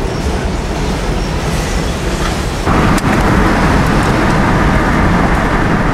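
A steady rumbling noise. About three seconds in it changes abruptly, with a click, to the louder, steady road and engine noise of a car driving along a street.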